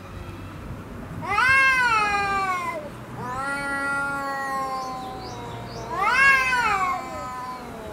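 Two cats in a fighting standoff yowling at each other: three drawn-out yowls, the first about a second in rising then falling in pitch, a longer, lower and steadier one from about three seconds, and another rising-and-falling yowl near six seconds.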